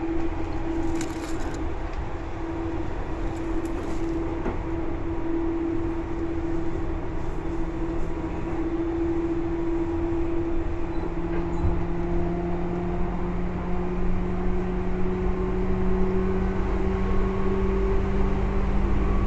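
Seibu 2000 series electric train running, heard from inside the car: a steady motor whine that climbs slowly in pitch and grows a little louder as the train gathers speed, over rumbling wheel and track noise, with a few light ticks in the first few seconds.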